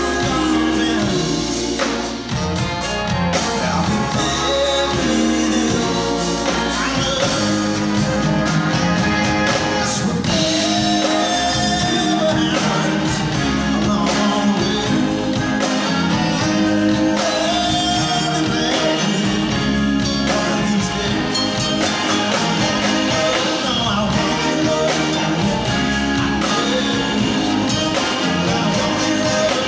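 Live rock band music: the full band playing at a steady loudness, with a melodic line that sounds like singing carried over it.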